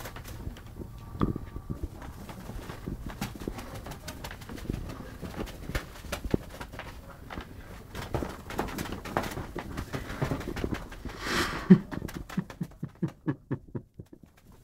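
Cats scuffling and clawing at a mattress: a steady run of soft scratches, rustles and taps. Near the end comes a louder rustling burst with a low thud, then a quick run of ticks.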